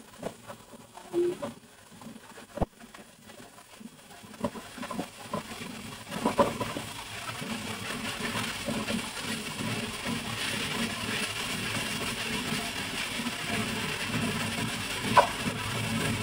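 Cubes of pork belly frying in oil in a nonstick pan and being turned with a wooden spatula. There are scattered knocks and scrapes of the spatula, then a steady sizzle that builds from about six seconds in, with a sharp knock near the end.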